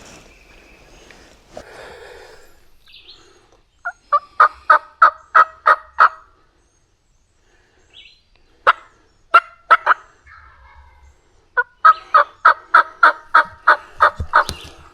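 Turkey calling in three runs of loud, evenly spaced notes, about four a second, the last run the longest.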